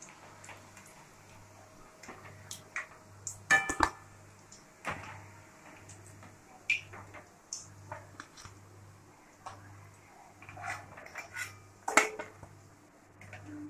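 Perforated steel slotted spoon clinking and scraping against a steel kadai and a plate as fried pakoras are lifted out of hot oil and set down. Scattered sharp metal taps, the loudest a few seconds in and near the end.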